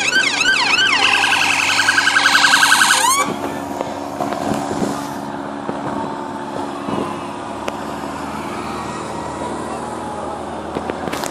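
Police-style siren wailing, switching to a rapid yelp, then cutting off about three seconds in; after that, a steady hum of vehicle engines and road noise.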